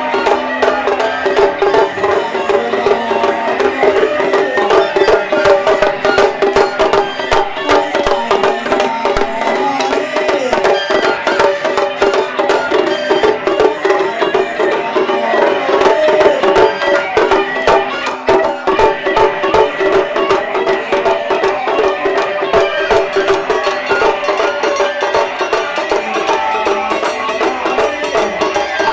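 Japanese taiko drums played in a fast, dense rhythm by a traditional ensemble, with a sustained melodic line over the drumming.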